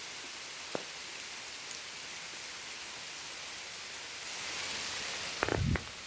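Heavy rain falling steadily on the river and the surrounding leaves, a steady hiss with a few close single drops tapping. It swells slightly partway through, and near the end comes a brief muffled rumble with a few knocks.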